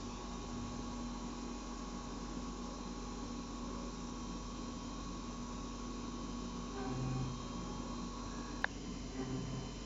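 Kern MMT CNC milling machine running with a steady hum and whine. A brief lower tone sounds about seven seconds in and again near the end, with a sharp click just before the second.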